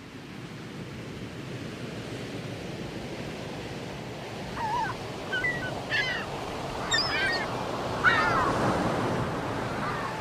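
Outdoor ambience: a steady rushing noise that fades in at the start, with a handful of short chirping bird calls from about the middle.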